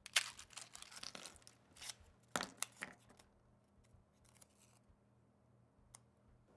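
Crisp fortune cookie being snapped and broken apart by hand: a run of dry crackling crunches over the first three seconds, then a few faint rustles and clicks as the paper slip is pulled out.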